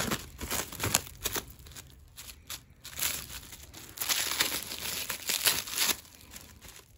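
Clear plastic wrapping crinkling as a wrapped flat wooden piece is handled and turned over. It comes in irregular bursts, with a longer, denser stretch about four seconds in.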